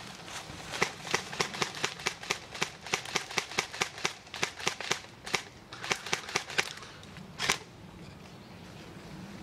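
Airsoft guns firing a rapid string of sharp single shots, about four a second, with a short break, then one louder shot near the end.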